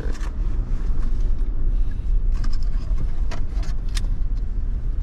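Car driving, heard from inside the cabin: a steady low rumble of engine and tyres, with scattered light clicks and rattles in the middle.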